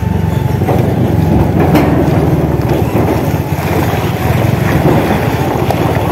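Engine noise from a TVS Ntorq 125 scooter riding slowly over a rough dirt road close behind a dump truck. The scooter's low rumble mixes with the truck just ahead, with scattered knocks and rattles from the bumpy road.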